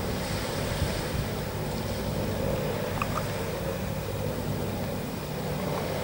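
Steady sea surf and wind, with a low rumble of wind buffeting the microphone.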